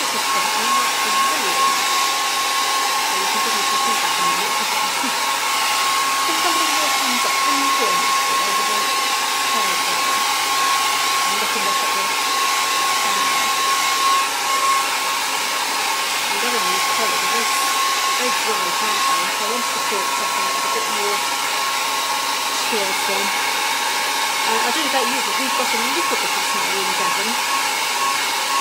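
Handheld hair dryer running steadily, a constant rush of air with a steady whine through it, blowing over wet watercolour paper to dry the paint.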